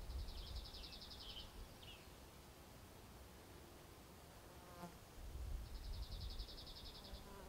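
Faint high insect buzz made of rapid, evenly spaced pulses, heard twice: for about a second and a half at the start and again near the end, over a low rumble of wind on the microphone.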